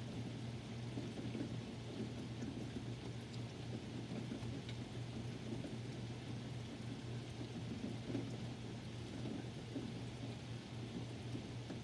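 Steady rain falling during a thunderstorm, with a constant low hum underneath and a few faint drips.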